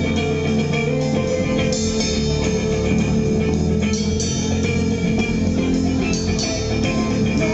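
Live rock band playing an instrumental passage: electric guitar and bass guitar over a drum kit.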